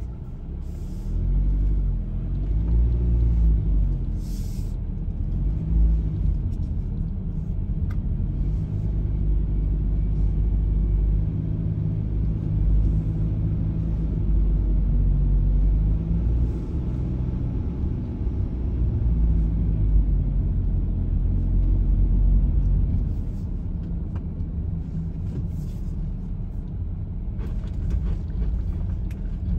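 Low rumble of a car's engine and tyres heard from inside the moving car, the engine note rising and falling as it speeds up and slows, with a few faint clicks.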